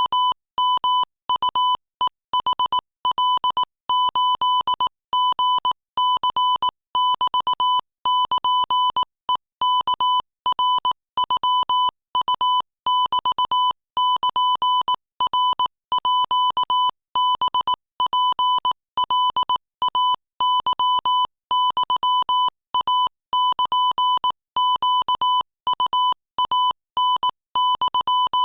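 Morse code sent at 22 words per minute: a single steady-pitched beep tone keyed on and off in quick dots and dashes, grouped into characters with short silent gaps between them.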